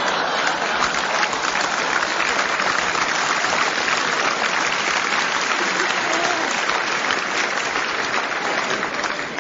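Large theatre audience applauding: dense, steady clapping.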